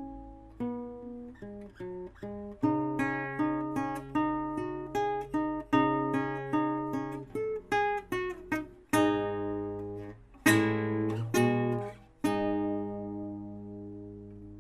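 Solo acoustic guitar music: picked notes with a few strummed chords, ending on a chord left to ring out.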